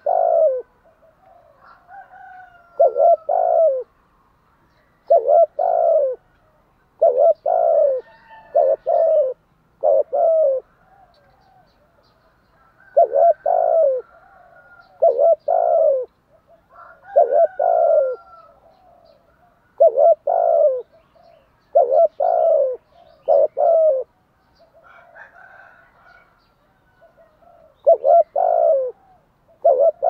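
Spotted dove cooing: short phrases of two or three low coos, repeated about every two seconds, with a longer pause near the end. It is the rapid urging coo ('gù thúc') of a decoy dove, the call used to lure wild spotted doves.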